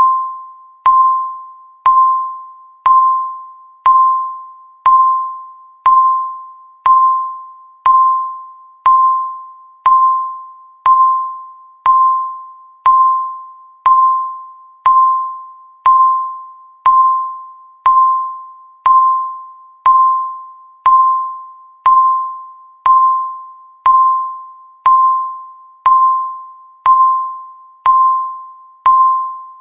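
Electronic countdown-timer beep: a single pitched tone struck once every second, each one starting sharply and fading away before the next. Each beep marks one second ticking off the countdown.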